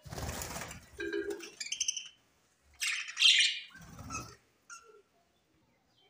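Budgerigars flapping their wings as several take off from a perch together, with short chirps and chatter. A loud harsh call about three seconds in, then another brief flutter of wings.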